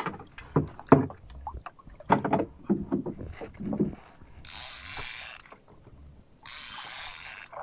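Fishing reel buzzing twice, about a second each time, as line runs on it during the fight with a hooked fish on a bent slow-jigging rod. Before that come a few seconds of knocks and handling sounds from the rod and boat.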